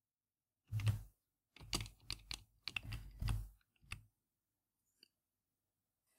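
Computer keyboard typing: a short run of key presses from about a second in, stopping about four seconds in.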